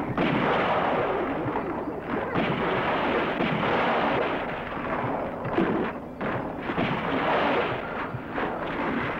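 Reenactment sound effects of a cabin under attack: a loud, continuous din of heavy crashing and banging on the roof and walls.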